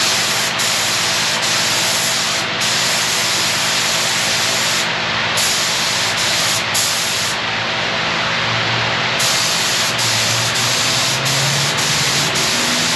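Gravity-feed paint spray gun hissing as polyurethane paint is sprayed in several passes. The hiss cuts in and out as the trigger is pulled and released, with a longer break of nearly two seconds near the middle. Under it runs a steady rushing noise.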